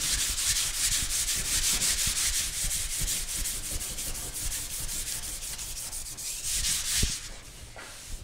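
Sandpaper held flat under the hand, with no block, rubbed quickly back and forth over a primed, guide-coated car dash panel: a steady scratchy hiss with every stroke. The strokes stop about seven seconds in with a light knock.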